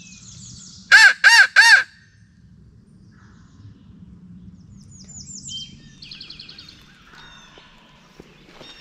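Three loud, harsh caws in quick succession from a crow locator call, blown to make a gobbler answer and give away where he is. Songbirds trill faintly in the background.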